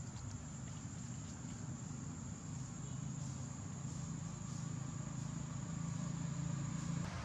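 A steady high-pitched insect drone that stops near the end, over a low steady rumble.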